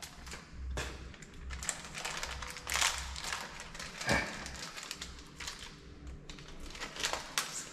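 Small plastic packet crinkling and rustling as it is worked and pulled at by hand to open it: irregular crackles and small clicks.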